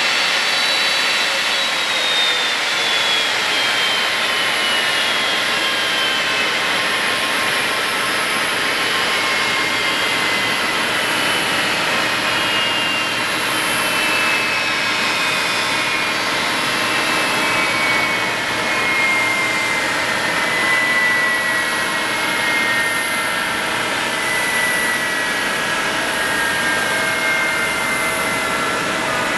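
Boeing 767-300ER turbofan engines spooling down at the gate: a steady rushing jet noise with a whine that falls slowly in pitch throughout.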